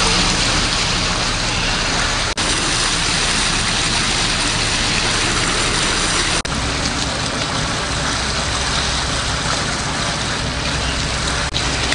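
A motor engine running with a steady low drone under a loud, even hiss, the sound cutting out for an instant three times, about two, six and eleven seconds in.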